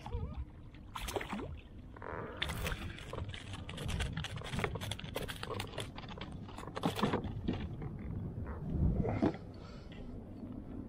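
Water lapping against a plastic fishing kayak's hull, with irregular knocks and clicks from fishing gear being handled on the deck, over a low wind rumble on the microphone.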